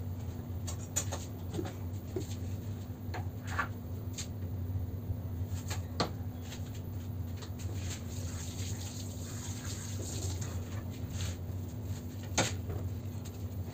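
A steady low hum with a faint hiss, and scattered soft taps and clicks of fingers pressing and shaping fondant on a granite countertop. A sharper click comes about six seconds in and another near the end.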